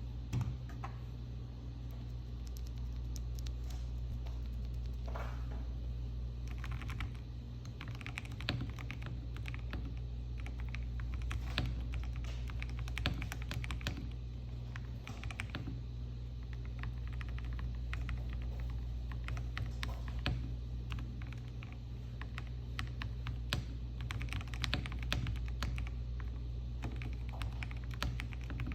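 Continuous typing on an Akko 5075B Plus mechanical keyboard with Gateron G Pro 3.0 Yellow linear switches: a steady stream of keystrokes over a constant low hum.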